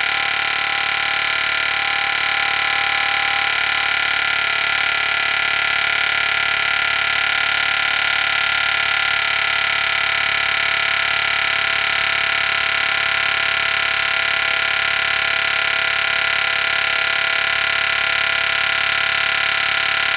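Pneumatic air hammer running continuously against a steel truck-frame rivet that will not drive out: a loud, steady, high-pitched hammering buzz that does not let up.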